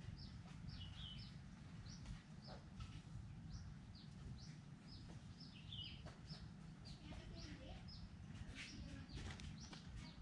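Faint chirping of birds: short, high, downward-sliding chirps repeating about twice a second, over a low steady rumble of background noise.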